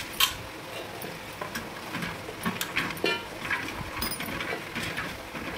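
Scattered light clicks and taps as garlic cloves, green chillies and coriander are dropped and handled in a stainless-steel grinder jar, the sharpest click about a quarter second in.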